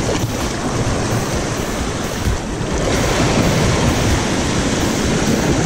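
Surf surging and washing over rock jetty boulders in a steady, loud rush, with wind buffeting the microphone.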